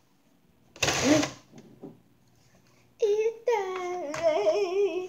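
A short noisy burst about a second in, then from about three seconds in a child singing without words in a high voice, the pitch sliding up and down.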